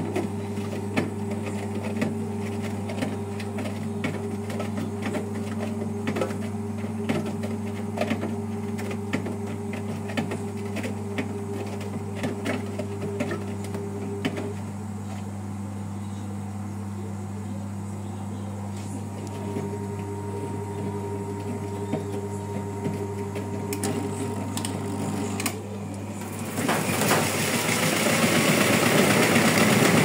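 Brandt top-loading washing machine running with a steady mechanical hum and light ticking. About 26 seconds in, a loud rush of water splashing inside the drum sets in and spray covers the lid window.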